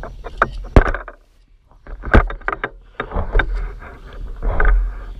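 Irregular knocks and bumps, a dozen or so, over a low rumble of wind on the microphone, with a short lull a little over a second in.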